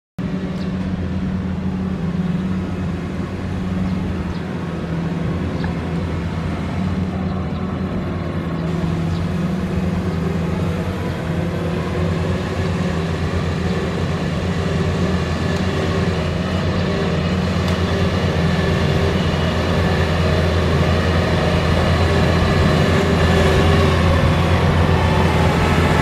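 Kubota DC-70 crawler combine harvester's diesel engine running steadily as the machine drives closer, growing louder toward the end.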